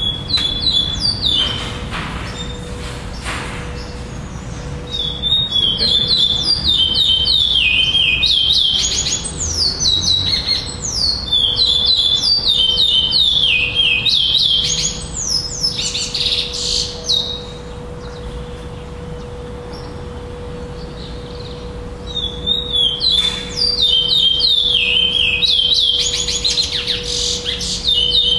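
Adult black male curió (chestnut-bellied seed-finch) singing: long phrases of rapid, falling whistled notes, repeated in bouts with pauses of a few seconds between them. A faint steady hum runs underneath.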